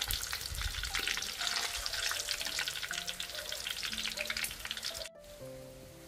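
Potato strips deep-frying in hot oil in a wok: a dense, crackling sizzle that breaks off abruptly about five seconds in, leaving soft background music.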